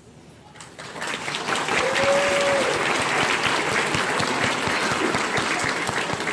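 Audience clapping, building up about a second in and then holding steady, with one brief voice call partway through.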